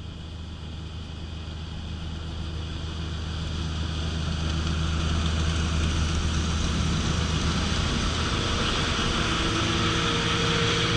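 Diesel engine and machinery of a John Deere 9650 STS combine harvesting corn, a steady drone that grows gradually louder.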